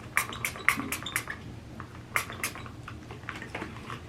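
Trigger spray bottle pumped in short, sharp spritzes, several in quick succession, then two more after a pause, with fainter ones near the end; the bottle is sputtering and not spraying properly.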